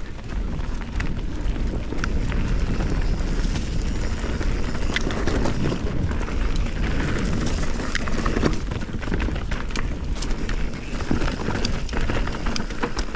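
Canyon Spectral 29 mountain bike riding down a dirt forest trail: tyres rolling and crackling over dirt and dry leaves, with frequent small clicks and rattles from the bike, over a steady low rumble.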